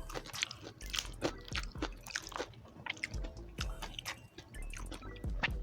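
Close-miked chewing and biting of crispy pata (deep-fried pork knuckle), a run of short, irregular crunches and mouth clicks.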